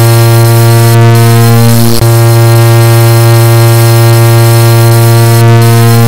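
Edited car horn sound held as one continuous, low, very loud tone rather than separate beeps, with a brief break about two seconds in.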